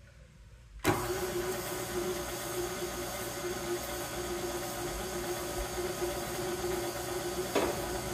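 KitchenAid Classic stand mixer switching on about a second in, then its motor running at a steady speed with a constant whine as the wire whip beats sugar and molasses in the steel bowl.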